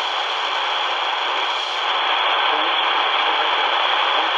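Steady shortwave static hiss from a C.Crane CC Skywave 2 portable radio's speaker, tuned to 13845 kHz, with only a faint signal under the noise.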